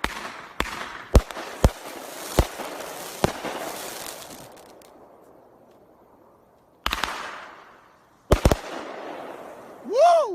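A 21-shot 500 gram consumer firework cake firing: a quick run of sharp shots and bursts with crackle in the first few seconds, fading out, then after a pause one more shot and a close pair near the end. A man's shout of "woo" at the very end.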